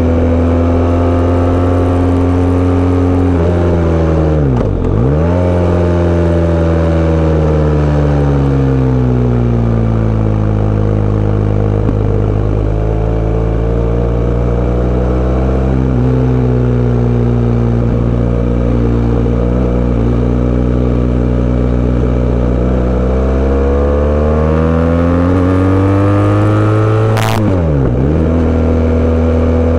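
Sport bike engine running under way, its pitch sinking slowly and then climbing again as the revs change. About five seconds in and again near the end, the engine note dips sharply for a moment and picks back up. A short sharp crack comes just before the second dip.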